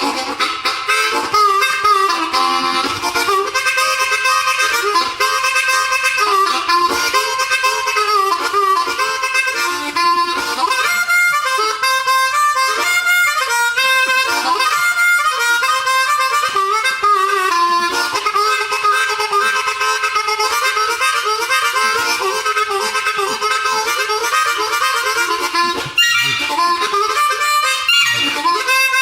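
Background music: a continuous melody of pitched notes, sitting in the middle and high range with almost no bass.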